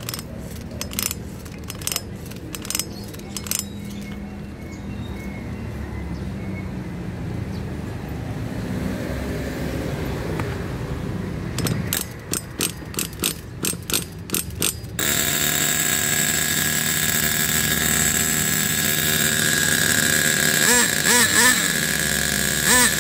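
Two-stroke nitro glow engine of a 1/10 scale RC monster truck being pull-started with a glow igniter on the plug: a series of quick starter-cord pulls with clicking, then about two-thirds of the way in the engine catches and settles into a steady high-pitched idle, with a few brief pitch wobbles from throttle blips near the end.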